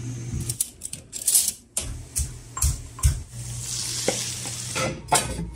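Cooking sounds: a metal spoon and ladle knocking and scraping against pans, several times. For about a second past the middle there is a stretch of sizzling as the marinade goes into a pan of frying chicken.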